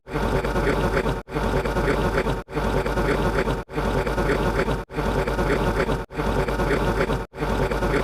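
A short buzzing sound-effect clip, about a second long, plays over and over. Each repeat is cut off by a brief gap of silence, seven times in all.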